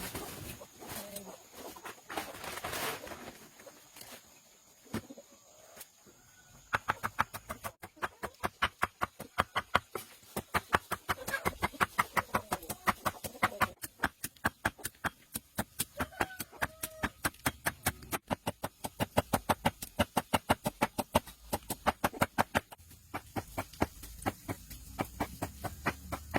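Rapid, even knocking, about four or five strikes a second, starting about a quarter of the way in and running on, typical of hand tool work on wood. Chickens cluck faintly.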